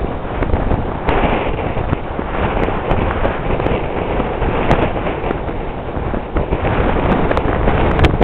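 Strong gusty wind blowing across the camera microphone: a loud rushing noise with scattered crackles and pops from the buffeting, swelling again near the end.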